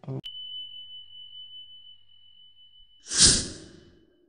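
A single bright ding whose clear high tone rings on steadily for about four seconds, with a loud whoosh coming in about three seconds in and fading away.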